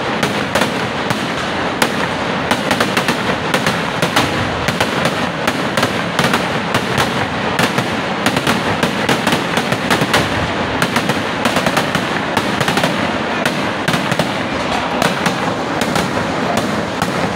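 Vedikettu fireworks: aerial shells and crackers bursting overhead in a dense, continuous barrage of bangs and crackles, several a second without a break.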